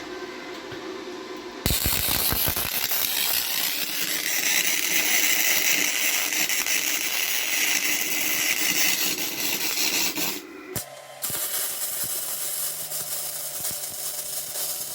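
Wire-feed arc welding on a cracked cast iron exhaust manifold with a Forney Easy Weld 140 MP welder: a loud, steady crackling hiss of the arc. It starts about two seconds in, stops briefly after about ten seconds, and starts again.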